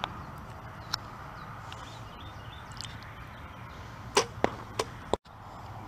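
A compound bow shot: one loud, sharp snap of the string about four seconds in, followed by two quieter knocks within the next half second. Fainter clicks come near the start and about a second in.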